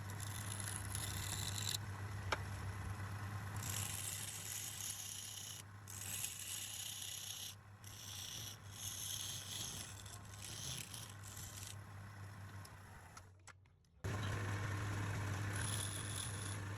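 Wood lathe running with a steady motor hum, while a turning tool scrapes the spinning wood in repeated passes of hissy cutting noise with short gaps between them. The sound fades briefly about thirteen seconds in, then comes back abruptly.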